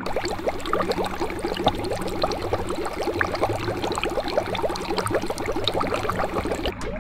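Bubbling water sound effect: a dense, steady stream of small bubbles that cuts off near the end.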